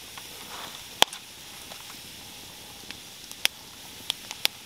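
Wood campfire burning with a steady hiss and sharp, scattered pops: one loud crack about a second in and a few more near the end.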